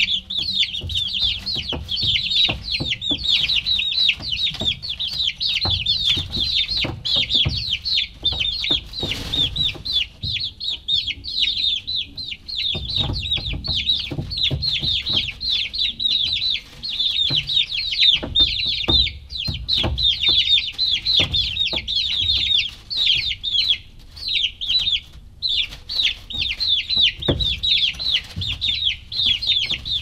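Domestic chicks peeping non-stop, a dense chorus of short, high-pitched, falling cheeps from several birds at once, with low knocks and rumble underneath.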